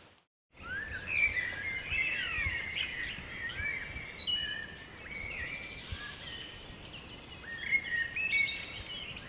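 Birds singing, many overlapping chirps and short whistles, which begin after a brief silent gap at the start.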